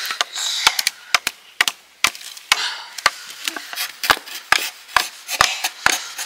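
A knife chopping on a wooden board in quick, uneven strokes, about two to three a second: pork being hand-minced for momo filling.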